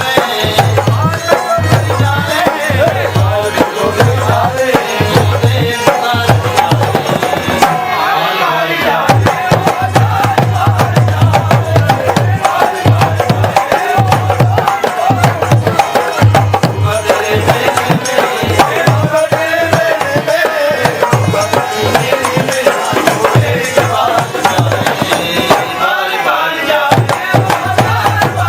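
Devotional bhajan music: a hand drum keeps a steady beat under a melody line. The drum drops out briefly twice.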